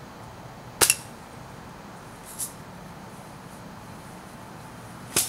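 Spring-powered Buck BB gun firing twice, about four and a half seconds apart, at a bar of wax: each shot is a sharp crack, the first a quick double crack of the shot and the BB striking. A fainter high tick falls between them.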